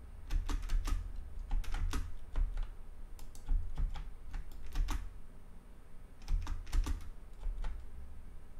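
Computer keyboard keys clicking irregularly, a few presses a second with short pauses, with dull low thumps under some of them.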